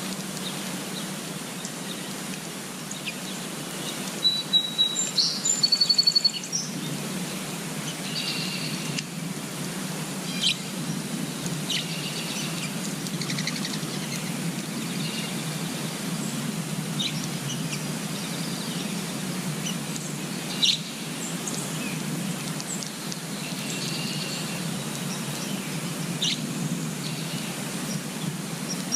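Small birds chirping and calling in short high-pitched notes over a steady background hiss of outdoor noise, with the loudest run of clear whistled notes about four to six seconds in.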